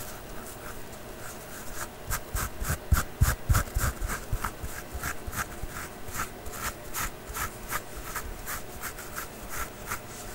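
ASMR scratching trigger: a run of rhythmic scratching strokes on a surface, about three to four a second, starting about two seconds in, with a few dull thumps among the strokes near the start.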